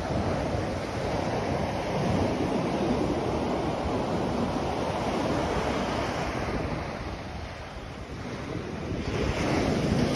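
Large ocean waves breaking and washing up a sandy beach at high tide: a continuous rushing surf that eases off about two-thirds of the way through, then swells again as another wave breaks near the end.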